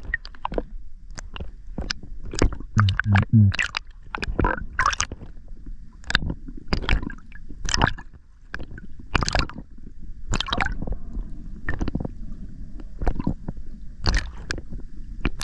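Underwater noise heard through a submerged camera: low muffled water rumble with irregular sharp clicks and knocks from the diver's movement and gear, and a brief low hum about three seconds in.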